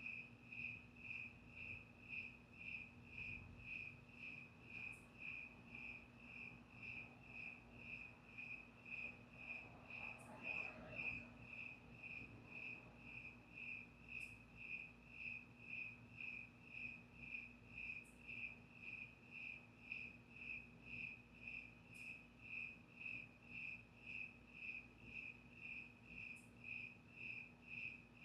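A cricket chirping steadily, one high, even chirp repeated a little under twice a second.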